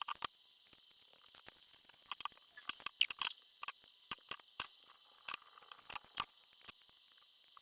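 Scattered light clicks and taps, irregular and a few a second, from small-scale hand work on the model at the bench: cutting and masking with tape. A faint steady hiss lies underneath.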